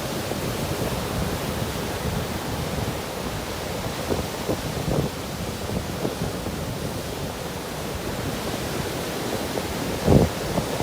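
Ocean surf washing onto a beach, a steady rushing noise, with wind buffeting the microphone and a stronger gust near the end.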